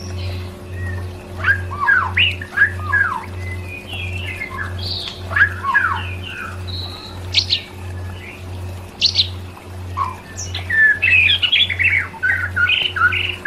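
Songbird calls: short chirps, slurred whistles and squawks, with a quick run of trilled notes near the end, over a low throbbing beat of about two pulses a second.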